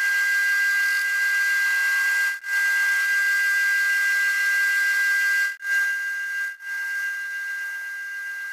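Metal lathe turning a metal tube, the cutting tool giving a steady high-pitched squeal over a hiss. The sound breaks off very briefly three times and is a little quieter after the second break.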